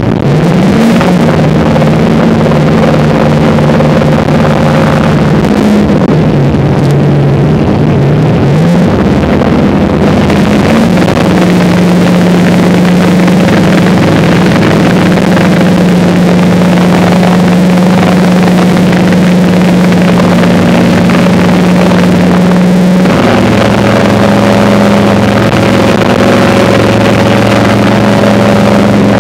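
Work boat's engines running, their pitch rising just after the start, dropping around six seconds in, rising again, then holding steady before shifting once more near the end, as the throttles are changed to manoeuvre. Wind and sea noise run underneath.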